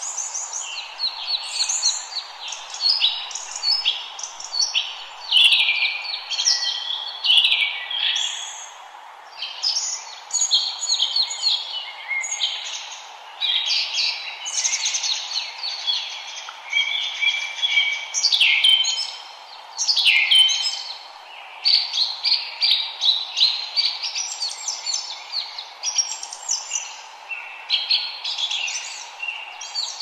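Many forest birds singing at once: a dense, continuous chorus of overlapping chirps, trills and whistled phrases, over a steady background hiss.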